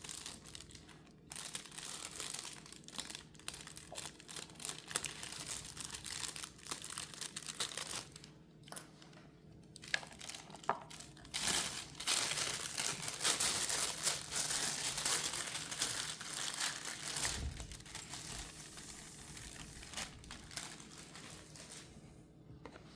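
Plastic wrap being crinkled and torn off a boxed model, a continuous crackling that is densest about halfway through.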